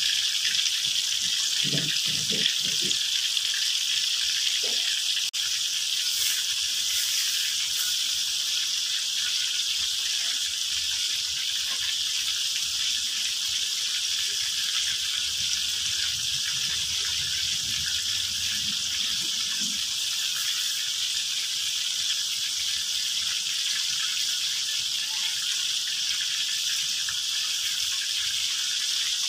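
Chicken pieces frying in hot oil in a wok, a steady sizzle.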